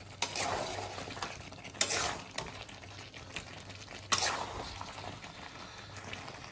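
A spatula stirring and scraping masala-coated chicken pieces around a wide kadai during kosha, the slow dry-frying stage, with the meat sizzling underneath. Separate scraping strokes come every second or two, the loudest about four seconds in.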